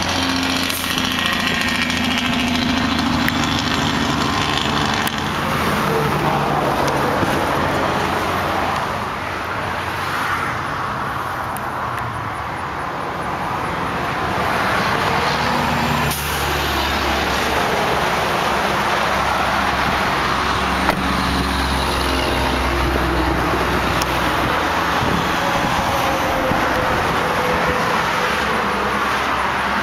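Motor vehicle noise: a steady engine hum with low-pitched swells that come and go over several seconds, like vehicles running and passing, under a constant hiss.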